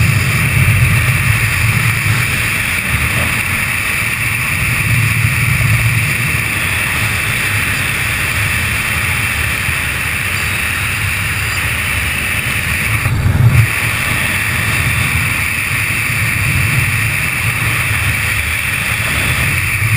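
Wind rushing over a camera microphone in paraglider flight: a steady airflow roar with slow, low buffeting, and one stronger gust about two-thirds of the way through.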